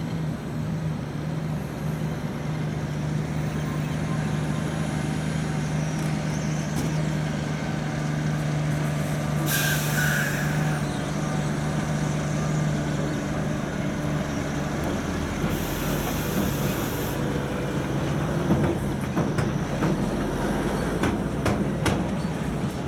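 Off-highway logging truck's diesel engine running steadily as it hauls a multi-trailer log load slowly past. Two short bursts of air-brake hiss come about ten and sixteen seconds in, and a run of knocks and clatter follows near the end.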